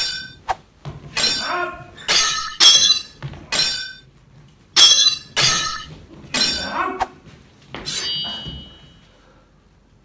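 Dubbed-in katana clash sound effects: about ten sharp metallic clangs with a short ringing tail, coming every half second to a second. Near the end a longer clang rings on for about a second.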